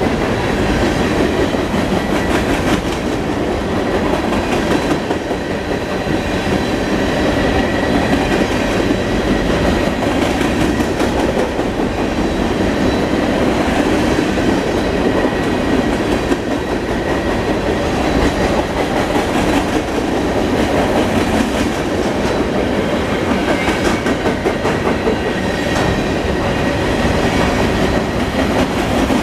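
Freight cars of a long mixed manifest train rolling steadily past: a continuous rumble with wheels clacking over the rail joints and a faint high wheel squeal.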